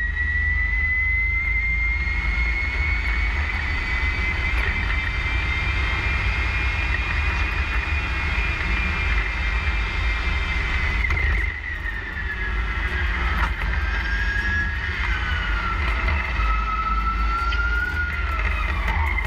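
NIO EP9 electric supercar's motors whining at speed, heard from inside the cockpit over a deep road and wind rumble. The high whine climbs slowly, drops sharply about eleven seconds in, then wavers lower as the car's speed changes.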